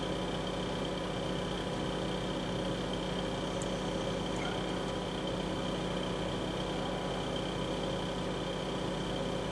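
A running machine's steady hum and whir, several unchanging tones over a faint hiss, with a faint tick about three and a half seconds in.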